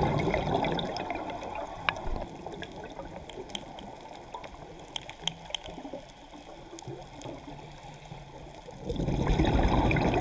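Scuba regulator exhaust bubbles, heard underwater through the camera's housing: a gurgling rush of exhaled bubbles at the start and again near the end, with a quieter stretch between holding faint scattered clicks.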